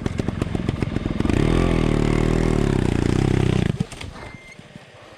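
Enduro motorcycle engine revving hard and held at high revs for about two seconds while climbing, then cutting out abruptly about four seconds in. It is stalling because it was left in too high a gear.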